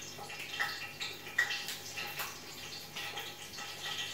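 Water running in a kitchen, with scattered light clinks and knocks through it.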